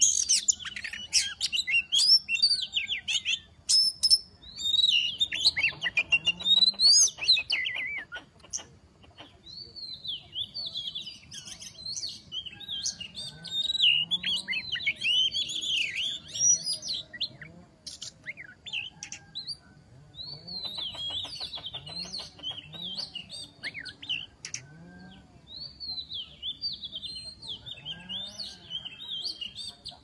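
Oriental magpie-robin singing long phrases of rapid, varied whistles and chirps, with short pauses between phrases. Faint low rising calls repeat every couple of seconds underneath.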